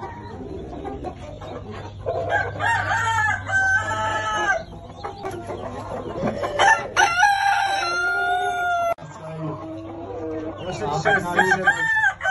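Brahma roosters crowing several times in turn, with one long drawn-out crow in the middle, amid chicken clucking.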